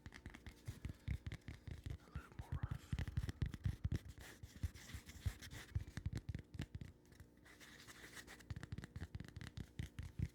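Fast, irregular tapping and scratching close to the microphone, a rapid patter of small clicks.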